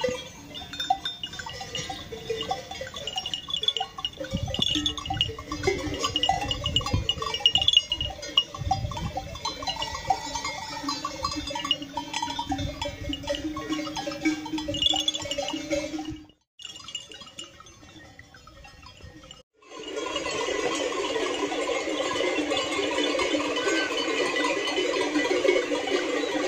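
Flock of sheep and goats: scattered bleats and the clank of their neck bells, with some dull low knocks in the first half. After a short quiet gap, a dense, steady jangle of many bells from the whole flock on the move.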